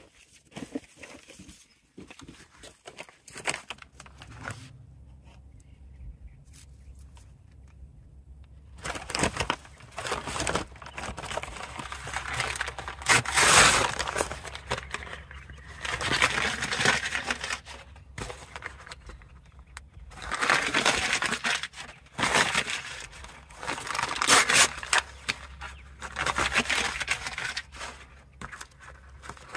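Paper bags being torn into pieces and crumpled by hand: a string of rustling rips and crinkles that starts about nine seconds in and comes in uneven bursts.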